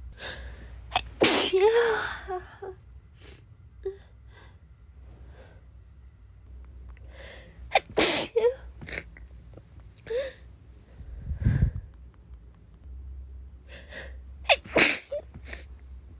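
A woman sneezing again and again: three loud sneezes about a second and a half, eight and fifteen seconds in, with shorter sharp bursts and breaths between them.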